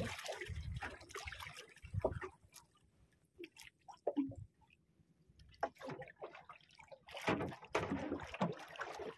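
Seawater sloshing and splashing around a small fishing boat in irregular bursts, quieter in the middle and loudest near the end.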